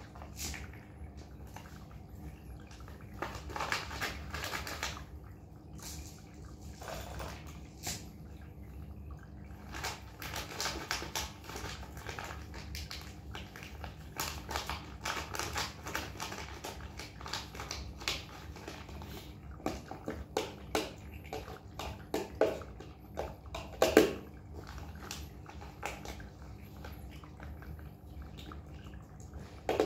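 Kittens eating wet cat food from bowls, with a small spoon scraping food out of a pouch and tapping a stainless steel bowl: irregular small clicks and scrapes, the loudest knock about 24 seconds in.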